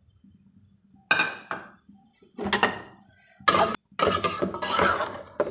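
A metal skimmer spoon clanking and scraping against the side of an aluminium cooking pot as chunks of beef, tomatoes and chillies are stirred. There are a few separate knocks, then a longer run of scraping and rattling near the end.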